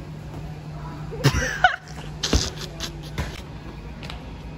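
Steady low hum, with a short voice-like sound about a second and a half in and a few sharp knocks after it.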